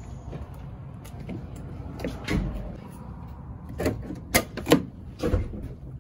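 Car door being opened: its handle pulled and the latch releasing, heard as a few sharp clicks and knocks in the last two seconds, after a low rumble and a single thump.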